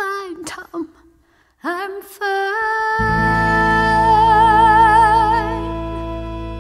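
Closing bars of a musical-theatre song: short sung phrases, then a long held note with vibrato over a sustained chord that dies away at the end.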